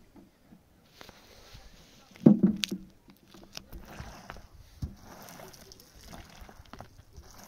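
Long-handled broom pushing wet tar across a hut roof, a steady wet scraping swish. A short loud vocal sound comes about two seconds in.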